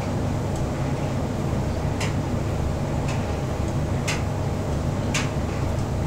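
Bosch Serie 8 heat-pump tumble dryer running a duvet load: a steady low hum from the drum motor and heat-pump compressor, with light ticks about once a second.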